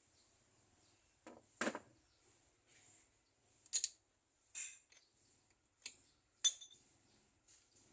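Metal tools or parts being handled, giving a few separate sharp clinks and clatters, the loudest about a second and a half in and again near the end.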